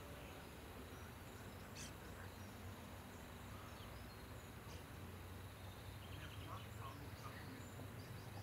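Faint outdoor ambience: a steady low rumble with scattered faint chirps, some of them short rapid trills.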